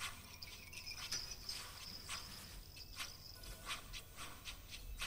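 Sparse experimental electronic music: scattered dry clicks and crackles over a low hum, with a thin high whistling tone held for about three seconds in the middle.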